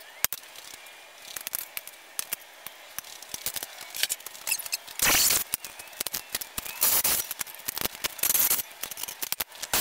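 Cordless drill boring through 1/8-inch steel strap in three short bursts in the second half, after a run of light clicks and clinks of tools and metal being handled.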